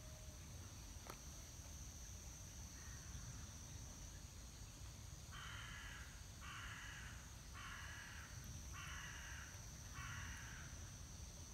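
A crow cawing: one faint caw about three seconds in, then five louder caws in a steady series, each close to a second long and a little over a second apart.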